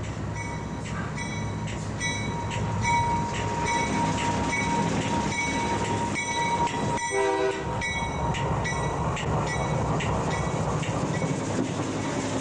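CSX freight train rolling over the rails directly above, first the locomotive and then the freight-car trucks, with a steady low rumble. A bell dings about twice a second throughout, as a grade-crossing bell does, and a short pitched blast sounds about seven seconds in.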